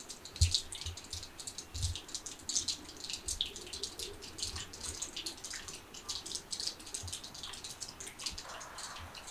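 Dense, irregular patter of water drips, many small high ticks a second, with a few dull low thumps in the first two seconds.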